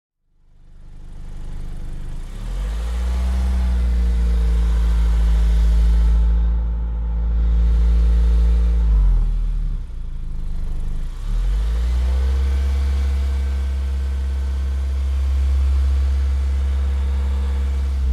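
Car engine running as the car drives: it fades in, revs up and holds a steady pitch, eases off about nine seconds in, then picks up again and runs steadily before fading out.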